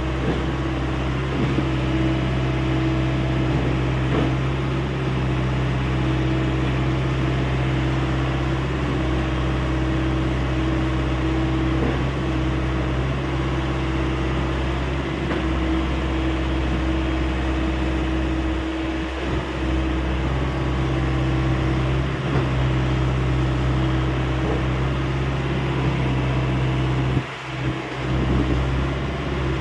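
Hyundai 85A SMART excavator's diesel engine running at a steady, even speed, with a brief drop in level about 27 seconds in.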